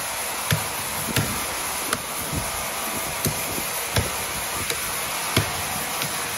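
Sawmill machinery running with a steady hiss and hum, and irregular sharp knocks of wood roughly every half second to a second.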